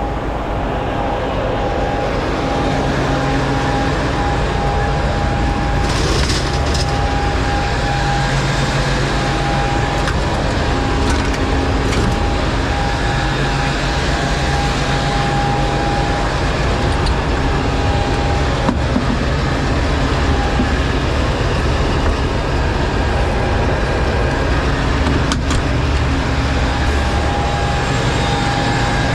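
Fire engine's motor running steadily with a steady whine that comes and goes, and a few sharp clicks.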